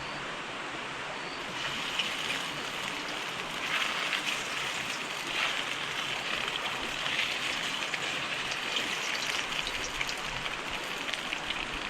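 Strips of pork tenderloin deep-frying in a wok of hot oil: a steady sizzle full of fine crackles, a little louder from about two seconds in.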